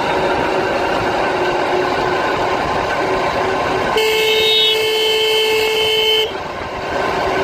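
Ride noise of a motorbike moving through street traffic, a steady rush of engine and wind. About four seconds in, a vehicle horn sounds one long blast of a bit over two seconds and cuts off suddenly.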